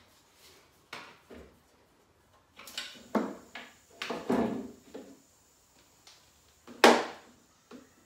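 Clunks and knocks of a tool and metal fittings being handled at a domestic gas meter while a test hose is connected for a gas tightness test: a scattered run of short knocks, the loudest one near the end.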